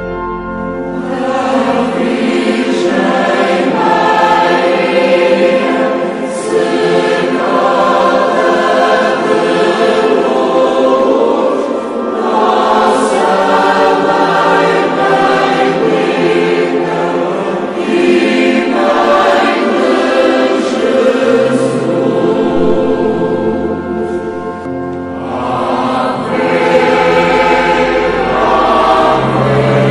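Choir singing a slow hymn in long, sustained phrases, a new phrase starting about every six seconds.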